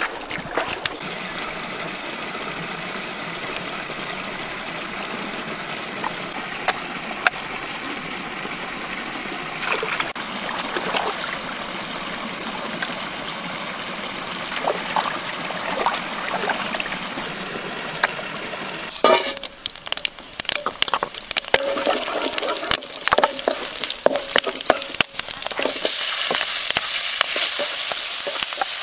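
A stream flowing steadily over rocks, with a few faint splashes as frogs are rinsed in it. About two-thirds of the way in it gives way to stir-frying in a wok: a wooden spatula clacks and scrapes among chillies and lemongrass while oil sizzles, and the sizzle grows louder near the end.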